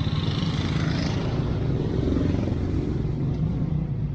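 Yamaha Mio scooter's engine running steadily with a fast low pulse, with wind rush over a helmet-mounted action camera's microphone.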